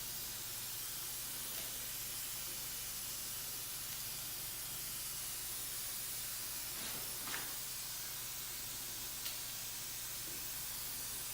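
Faint, steady hiss with a low hum underneath and a few faint clicks.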